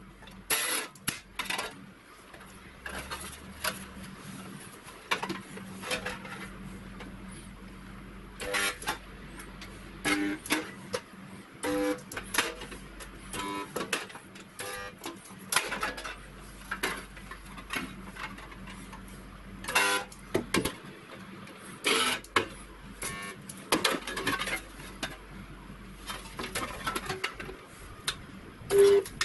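AKS-3TM 220 V resistance spot welder tacking a galvanized sheet-steel box: a couple of dozen sharp clicks and metallic clanks at irregular intervals as the electrodes clamp the seams and the sheet metal is shifted between welds, over a steady low hum.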